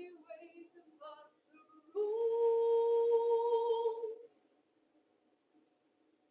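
A woman singing unaccompanied: a few short sung phrases, then one long held note of about two seconds.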